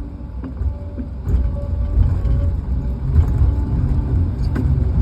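Heavy logging equipment's engine running, a loud low rumble that grows about a second in, with a few sharp knocks.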